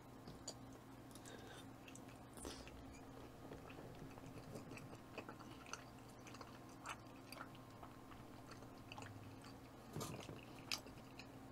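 Faint wet chewing of raw bluefin tuna sashimi, with scattered small mouth clicks and a few louder ones near the end.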